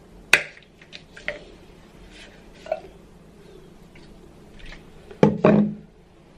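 A plastic toiletry bottle and its snap cap being handled: a sharp click just after the start, a few light taps, then two louder knocks a little after five seconds in.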